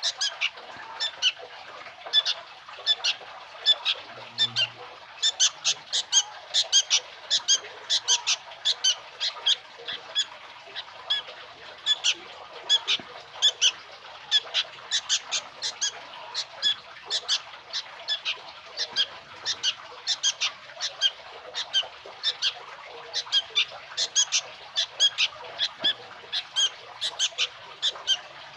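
Young sooty-headed bulbul (kutilang) chick calling with short, sharp chirps over and over, about two to three a second without a break.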